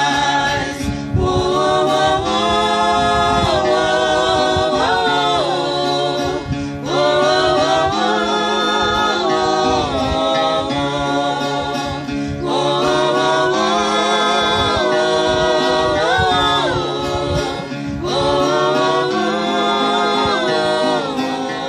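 Music: sung vocalise of long held notes with vibrato, in phrases a few seconds long, over a plucked viola caipira accompaniment and sustained low notes.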